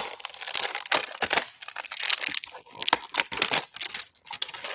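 Plastic wrap crinkling and tearing as a cardboard hanger box of trading cards is unwrapped and opened, a dense run of quick crackles and rustles.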